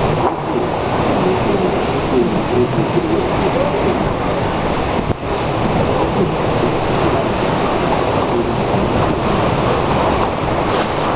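Typhoon wind blowing hard in a continuous rush of noise, buffeting the microphone, with a brief lull about five seconds in.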